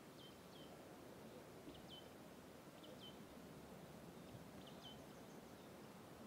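Faint small bird chirping: four quick pairs of short, high, downward-sliding chirps, spaced about a second or so apart, over a low steady outdoor hiss.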